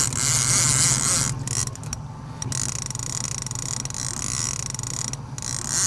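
Daiwa casting reel's drag buzzing as a hooked fish pulls line off against it, in two spells with a short pause between them.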